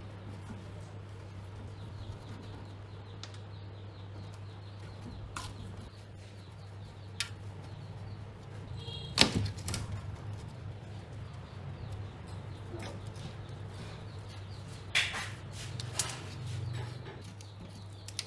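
Parts and tools being handled on a workbench: a few scattered sharp clicks and knocks, the loudest about nine seconds in and two more near fifteen and sixteen seconds, over a steady low hum.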